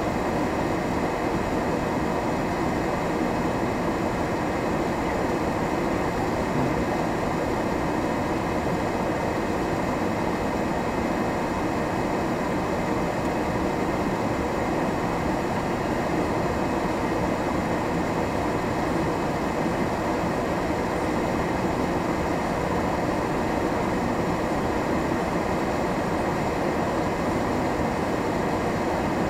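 Steady in-cab rumble of a vehicle driving slowly over a snow-packed road, its tyres fitted with snow chains, engine and chain-and-tyre noise running evenly.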